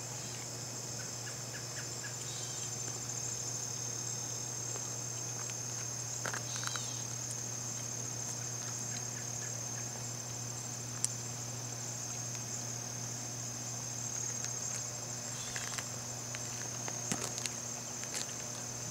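A steady, high-pitched chorus of insects, with a few brief clicks over it.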